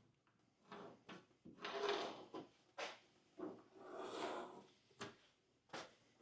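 Light handling sounds: scattered knocks and clicks and two short scraping passes, as the plywood piece and tools are moved about to be marked out.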